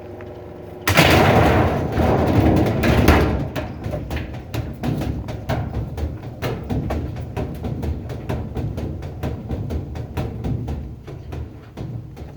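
2018 GE top-load washing machine being destroyed at speed: a sudden loud crash about a second in, then rapid, continual banging and clattering of its drum and parts that slowly grows quieter.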